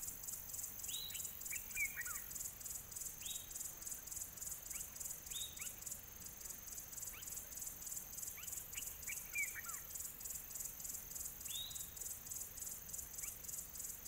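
Nature ambience of a high insect trill pulsing about four times a second, with scattered short bird chirps and down-slurred calls over it.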